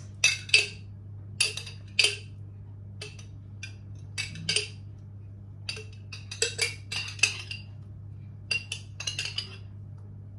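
A metal spoon clinking and scraping against the inside of a glass sauce jar in quick irregular clusters as sauce is scooped out, over a steady low hum.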